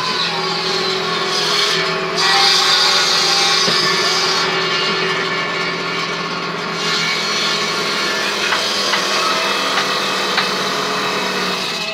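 Power tool working wood in a furniture workshop, running steadily with a constant hum; its noisier cutting sound swells about two seconds in and again from about seven seconds in.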